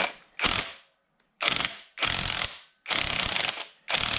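Ratchet wrench clicking in repeated strokes, a quick run of clicks with each swing of the handle and short pauses between. It is turning the centre bolt of a puller to draw the harmonic balancer off the crankshaft nose of a TVR Speed Six engine.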